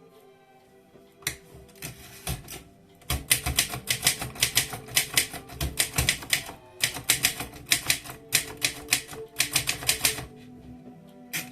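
Alpina manual typewriter being typed on: two single keystrokes, then a fast run of several keystrokes a second with a brief pause partway through, over background music.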